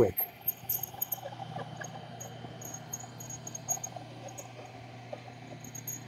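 iRobot Roomba Combo j7+ robot vacuum running as it vacuums and mops a wet tile floor: a faint steady hum with scattered light high-pitched ticks.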